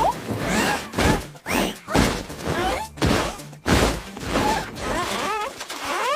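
Cartoon sound effects: a rapid series of about eight thuds and crashes, with short sliding squeaky cries between them, over background music.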